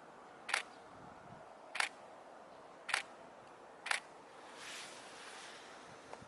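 Camera shutter clicking four times, about a second apart, followed by a brief soft rush of noise over a low background hiss.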